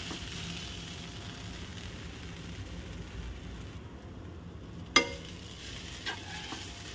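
Spatula stirring and scraping cooked grated sweet potato in a nonstick kadai, with a steady low hiss underneath. One sharp tap of the spatula against the pan about five seconds in, and a softer one about a second later.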